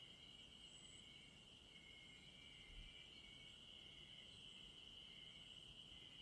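Faint, steady chorus of insects such as crickets: one high-pitched trill runs without a break, while a second, slightly lower insect call comes and goes.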